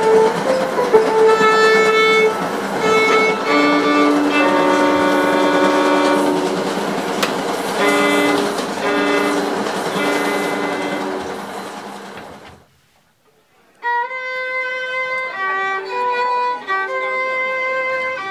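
Solo violin playing slow, held bowed notes over a steady hissing noise that fades out about twelve seconds in. After a gap of about a second the violin comes back clean, without the hiss.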